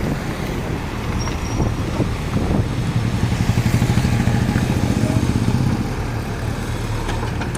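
A JCB 3DX backhoe loader's diesel engine running with a rapid low throb, revving up around the middle and settling back toward the end.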